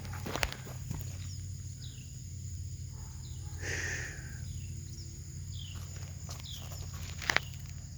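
A bird repeating a short downward-slurred chirp about once a second, over a steady low hum, with a few sharp clicks or crunches near the start and near the end.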